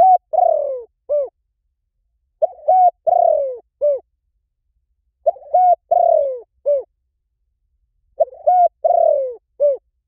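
Spotted dove cooing its song, four phrases about three seconds apart. Each phrase is a few short coos, a longer falling coo and a short last note.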